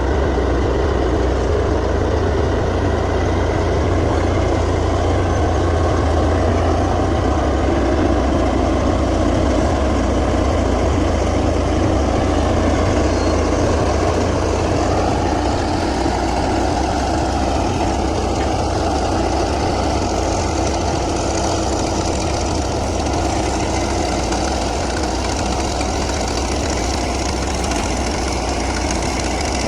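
Komatsu D155A crawler bulldozer's diesel engine running steadily, a deep low drone, its note shifting slightly about halfway through.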